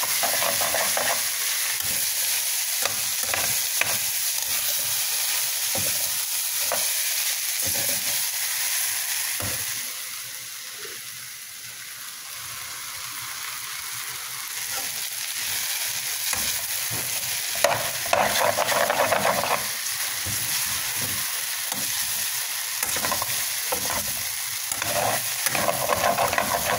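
Chow mein noodles and vegetables sizzling in a hot frying pan, with a metal spatula scraping and clicking against the pan as they are stirred. The sizzle drops for a few seconds about a third of the way in, then picks up again.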